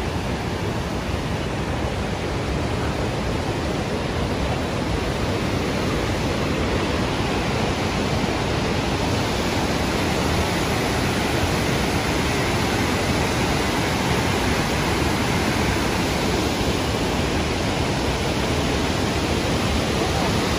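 Waterfall rushing: a steady, unbroken noise of falling water with no changes.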